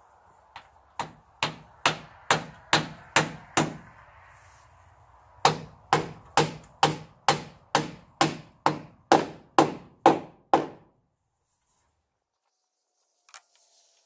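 Claw hammer driving nails through building wrap into wooden framing: two runs of steady blows about two a second, with a short pause between them, stopping about eleven seconds in.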